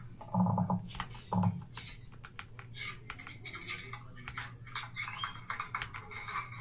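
Typing on a Motospeed CK104 mechanical keyboard with red linear switches: rapid, irregular key clicks and clacks, with a voice briefly in the first second and a half.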